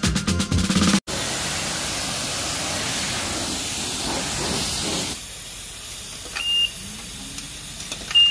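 Self-service car wash high-pressure wand spraying water onto a car with a steady hiss. Then, more quietly, the coin-op timer gives two short electronic beeps about a second and a half apart, its warning that the paid time is running out and more coins are needed.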